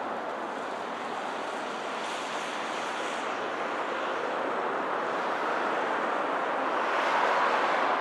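Steady rushing background noise, like wind or distant traffic, swelling slightly toward the end; no distinct pecking strikes stand out.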